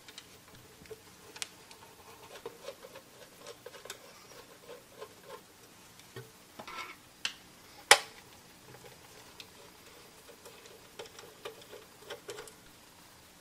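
Small irregular clicks and taps of a screwdriver working screws out of a sheet-metal server power-supply case, with the metal case being handled. One sharper, louder click comes about eight seconds in.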